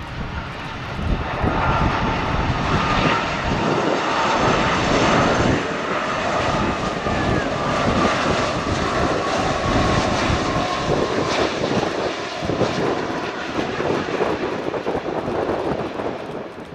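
Jet airliner's engines passing close by: a loud, steady rush with a thin whine that slides slowly down in pitch, building about a second in and easing off near the end.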